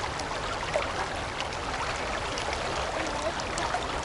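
Fast-flowing river, its current running steadily over stones close by.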